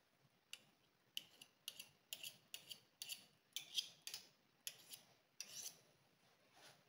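Butter spitting and crackling as it melts in a hot non-stick frying pan: about a dozen short, sharp crackles in uneven succession, faint overall.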